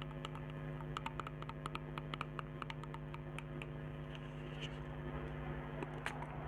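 Fingernails tapping on cosmetic packaging: a quick run of light clicks from about a second in, thinning to a few scattered taps near the end, over a steady electrical mains hum.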